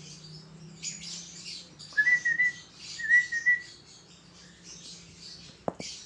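Peach-faced lovebird making high, scratchy chattering squeaks, with two short clear whistled notes about two and three seconds in and a sharp tap near the end.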